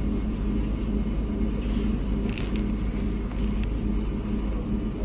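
An unmodernised 1965 EN57 electric multiple unit under way, heard from inside the carriage: a steady rumble of the running gear with a constant motor hum, and a few short high-pitched clicks in the middle.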